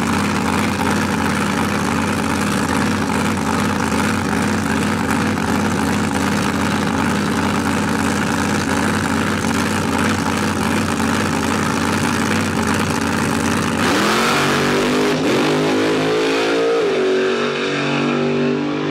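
Chevrolet Vega drag car's engine running at the starting line with a steady, loud idle. About fourteen seconds in it launches at full throttle, the pitch climbing in steps through the gear changes as the car pulls away down the strip.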